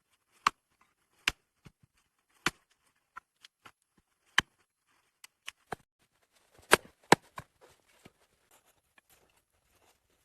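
A series of sharp, separate knocks at an uneven pace, with a quick run of lighter ones in the middle and the two loudest close together about seven seconds in.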